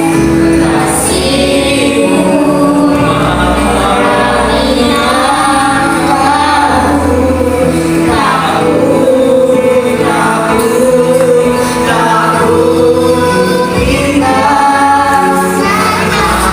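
Song sung by three vocalists at once, several voices wavering over one another above a steady low instrumental accompaniment.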